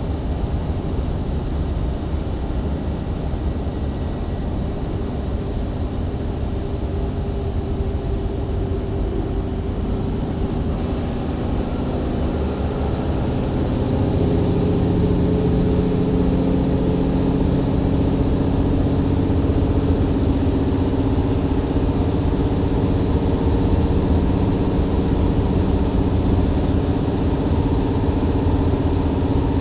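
Mercedes-Benz Citaro C2 LE hybrid bus under way, heard from inside the passenger cabin: the diesel engine and Voith automatic gearbox pulling with a steady low rumble. Partway through, a steady multi-tone hum builds in and the sound grows louder from about halfway, then holds.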